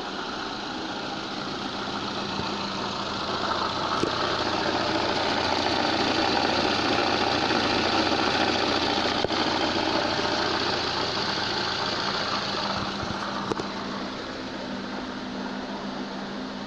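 Lada idling with a knocking noise from the manual gearbox. The knock comes from the turning input shaft and goes away when the clutch is pressed. It swells for about ten seconds in the middle and eases near the end, the sign of worn gearbox bearings with pitted balls.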